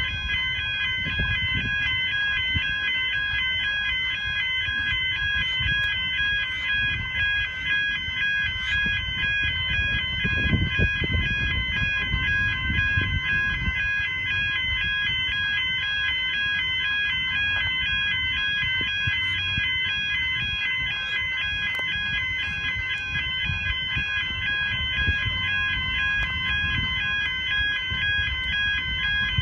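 Railway level crossing warning bells ringing steadily, a rapid pulsing electronic ding, over the low rumble of empty container flat wagons rolling past, with scattered sharp clicks from the wheels.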